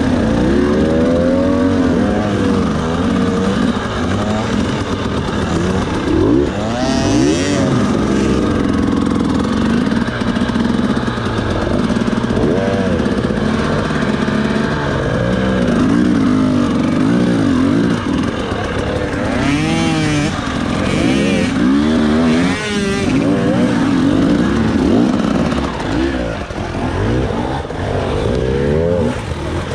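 FPV racing quadcopter's brushless motors and propellers whining, the pitch swooping up and down again and again as the throttle is punched and eased.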